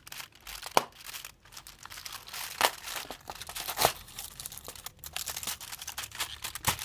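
Fingers picking open a cardboard door of a Dairy Milk chocolate advent calendar: card tearing and crinkling, with several sharp crackles and snaps.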